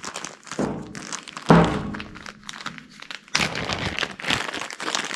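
A replacement lock cylinder kit's box and packing being handled: two knocks in the first second and a half, then paper and plastic wrapping crinkling and rustling from about three seconds in.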